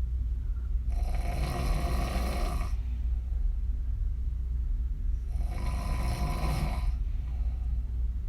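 A woman snoring with her mouth open, lips blowing on the breath: two long snoring breaths about four seconds apart, each lasting nearly two seconds. A steady low hum runs underneath.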